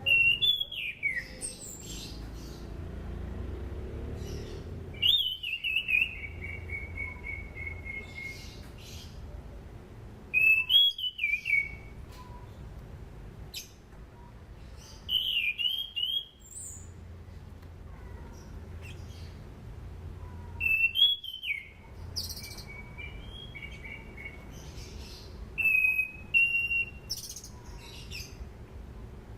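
Orange-banded thrush (anis cendana) singing: a loud phrase about every five seconds, each opening with a high falling note and running into a string of quick repeated notes, with a few very high notes in between.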